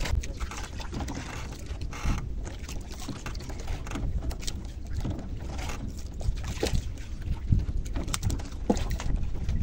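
Low wind rumble and water moving against a small boat, with scattered small clicks and knocks as fishing line and tackle are handled.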